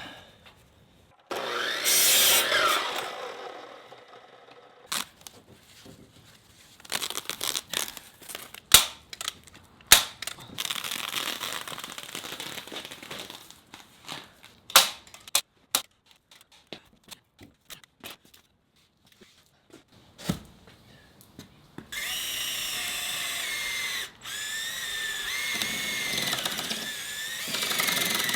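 Carpentry work: a power drill running in separate stretches, the longest near the end with a wavering whine, with sharp knocks and clicks of wood and tools in between.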